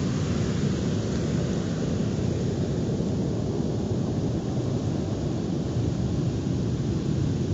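Steady low rumble of a small fishing boat underway at sea: the engine's drone mixed with wind on the microphone, even and unbroken.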